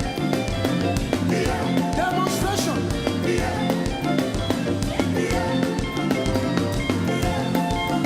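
Upbeat gospel praise music with drums keeping a steady, even beat under pitched instruments.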